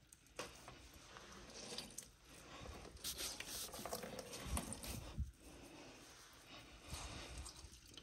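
Water dripping and splashing with wet rubbing and a few small knocks, as the inside of a freezer is washed out by hand.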